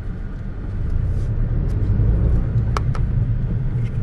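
Low, steady rumble of a Tata Tigor car driving, heard from inside the cabin, growing slightly about a second in, with two short clicks close together near three seconds.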